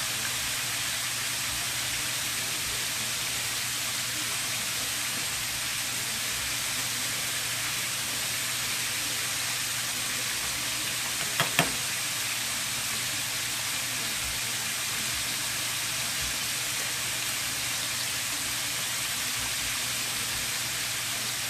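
Breaded chicken tenders deep-frying in hot oil in a stainless steel pan: a steady sizzle, with one brief click about halfway through.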